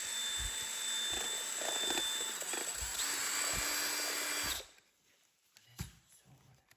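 Cordless battery paint sprayer's turbine motor running with a steady whine, switched off abruptly about four and a half seconds in, followed by a few faint knocks.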